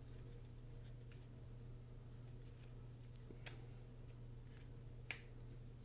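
A few faint, sharp plastic clicks from handling the DJI Osmo Mobile 6 smartphone gimbal while trying to power it on; the sharpest click comes about five seconds in. A faint steady low hum runs underneath.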